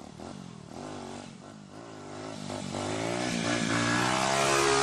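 Motorcycle engine revving in short blips, then pulling up in pitch and growing steadily louder toward the end.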